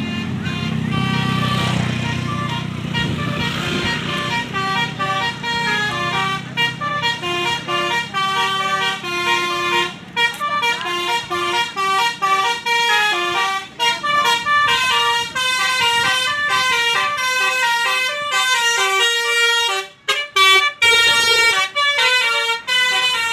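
Basuri telolet bus horn, a set of multi-tone air horns, playing a fast tune of short stepped notes that runs on almost without a break. A bus engine rumbles under the first few seconds.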